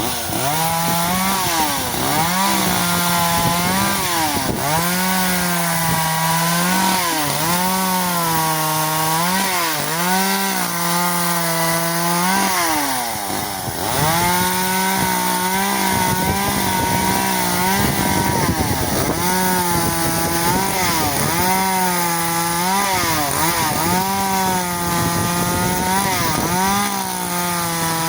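Echo CS-370 two-stroke chainsaw cutting branches at full throttle. The engine pitch sags each time the chain bites into the wood and climbs again as it frees, over and over, with a short dip about halfway through.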